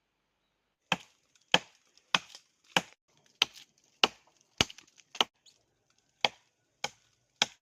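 A blade chopping wood in steady, evenly spaced strokes, a little under two a second. The strokes start about a second in, about a dozen in all.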